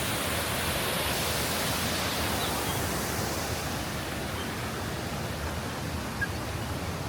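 Steady rush of water pouring over a river waterfall, an even hiss with no breaks. It goes a little duller about halfway through, and a single small click sounds near the end.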